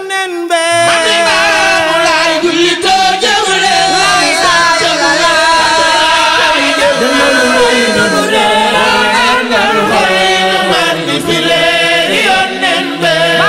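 Several voices singing a Layène devotional chant together, the sung lines rising and falling without a break.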